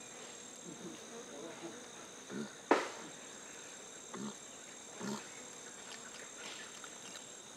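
Forest insects droning steadily in two high, even tones. A few short soft sounds come through, and one sharp click about two and a half seconds in is the loudest thing.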